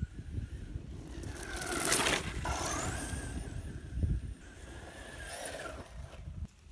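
Brushless electric motor of an RC truck whining as it is driven past and away across grass. The whine rises and falls in pitch, loudest about two seconds in, then fades, over a steady low rumble.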